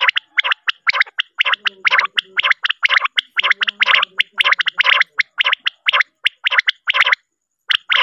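Male common quail calling: a fast string of short notes, about four a second, breaking off briefly near the end.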